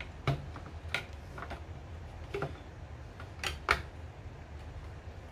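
Hard plastic toy parts clicking and knocking as the Falcon head piece of the Camp Big Falcon base is slotted onto its top: several short sharp clicks spread over a few seconds, two of them close together about three and a half seconds in, over a faint low hum.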